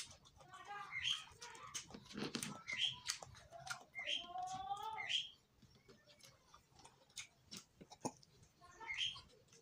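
Eating sounds: chewing and sharp mouth and finger clicks from food eaten by hand. About six short rising calls from an animal are heard, several in the first five seconds and one near the end.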